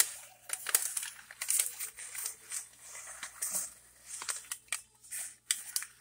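Paper towels crinkling and tearing as they are pulled away from a baked starch brick by hand: irregular short crackles and rustles.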